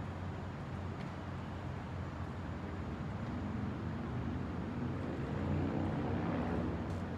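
Steady low hum of a large hall's background noise, with a faint click near the end.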